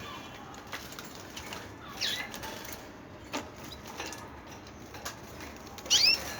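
Birds chirping: a sharp chirp about two seconds in and a louder one near the end, with scattered light clicks between.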